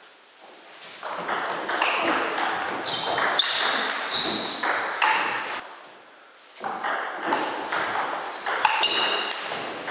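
Table tennis rally: the plastic ball clicking back and forth off the bats and table, with footwork on the wooden floor. It drops out briefly at the start and again about midway.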